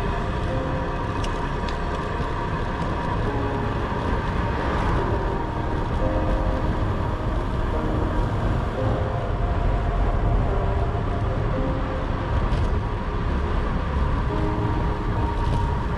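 Steady rushing rumble of wind and road noise from a bicycle descending at about 40 to 50 km/h, heard over soft background music with held notes.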